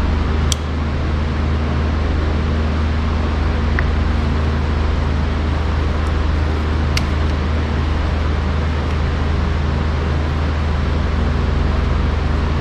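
A steady mechanical hum with a low drone, with two light clicks of small parts or a tool being handled, about half a second in and around seven seconds.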